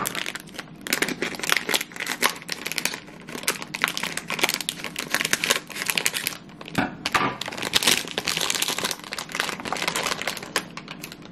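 Clear plastic snack bag crinkling and crackling as it is handled and cut open with scissors, with many irregular clicks.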